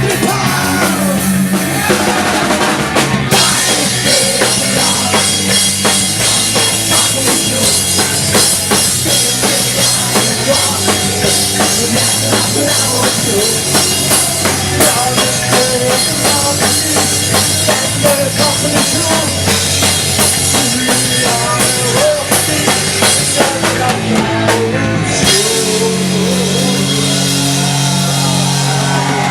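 Rock band playing an instrumental passage with no singing, driven by a drum kit with steadily ringing cymbals over bass notes. About 25 seconds in, the cymbals drop out, leaving a lighter part carried by the bass.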